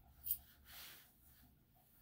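Grooming scissors snipping once through a dog's leg hair, a short crisp snip, followed by a soft hiss about a second in.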